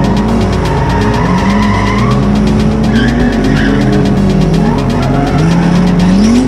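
Drift car engines revving up and down repeatedly, with tyres squealing as the cars slide sideways, over background music with a steady beat.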